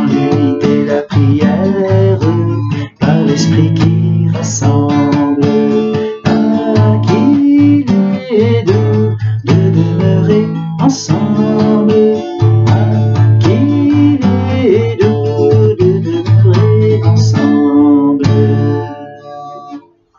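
Acoustic guitar strummed in a steady rhythm as a hymn accompaniment, with a man's voice singing along at times. The strumming stops and rings out near the end.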